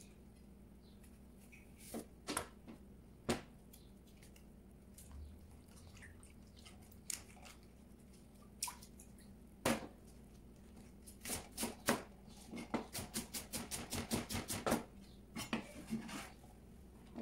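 Chef's knife chopping a vegetable on a plastic cutting board: a quick run of even strokes, about four a second, starting just past the middle, after a few scattered knocks and clicks of knife and steel bowl.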